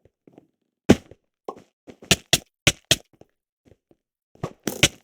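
A series of irregular sharp knocks and thunks, about a dozen, some in quick pairs and a short cluster near the end.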